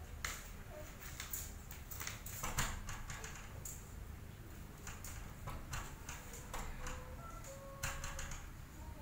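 Irregular light taps and knocks from toddlers at play, one patting a wooden door with her hands.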